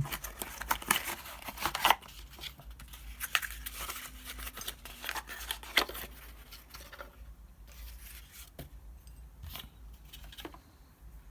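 Packaging of a boxed prize plate being opened by hand: crackling, crinkling and tearing with sharp clicks. The sounds come thick for the first two seconds, then sparser and fainter.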